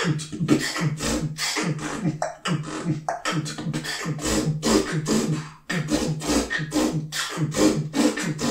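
Solo beatboxing: fast, rhythmic mouth-made percussion with short low pitched tones under the beat, briefly dropping out about five and a half seconds in.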